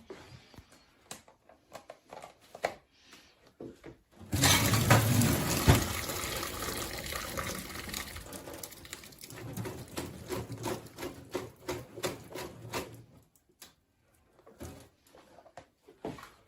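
A rush of water starts suddenly about four seconds in and tapers off over the next several seconds, with small handling clicks and knocks before and after.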